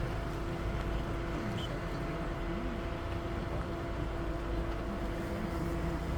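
Vehicle engine running steadily with a constant hum and road noise.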